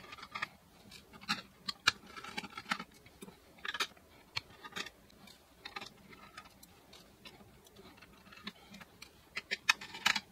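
Scattered small clicks and ticks of a screwdriver loosening the screws of a motherboard's metal M.2 heatsink cover, as the cover is worked loose. The clicks come thicker near the end.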